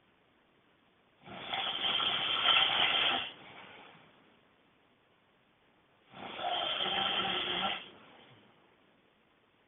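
A person snoring extremely loudly: two long snores about five seconds apart, each lasting about two seconds and trailing off into a fainter breath.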